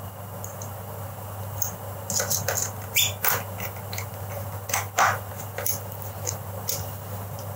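Scattered small clicks and scrapes of a screwdriver and fingers working a wire into the screw terminal of a plastic light switch, over a steady low hum.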